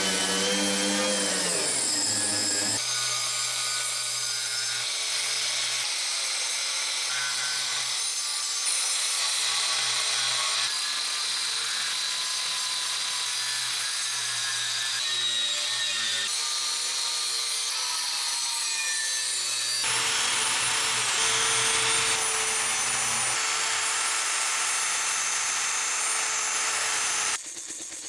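Power tools grinding rust off steel machine parts in several short cuts, with a steady high-pitched abrasive grinding over a motor hum. An angle grinder's flap disc works a steel plate. Near the end it gives way to quieter hand sanding with sandpaper inside a steel funnel.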